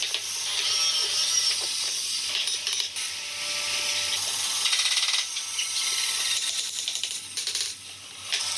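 Wooden parts being handled and fitted together, with light knocks and clicks over a steady hiss.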